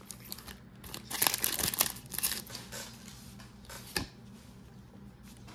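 Foil Pokémon booster pack being torn open and its wrapper crinkled, a quick flurry of rustles and crackles, followed by a single sharp click about four seconds in.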